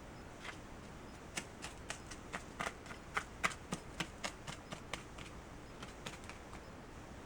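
Light, irregular clicking and tapping of kitchen utensils during food preparation, two or three sharp clicks a second for about five seconds, then stopping.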